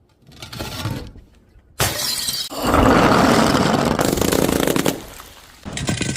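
Glass smashing: a sudden crash about two seconds in, then a couple of seconds of dense shattering. Near the end, sharp clinks of glass pieces ringing.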